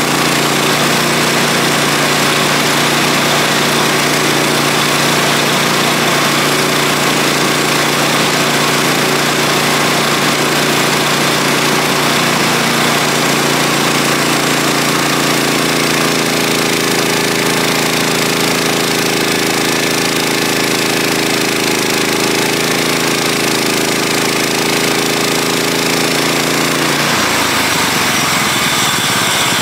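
Sawmill running loud and steady with an engine drone. Its tone shifts about halfway through and drops lower near the end.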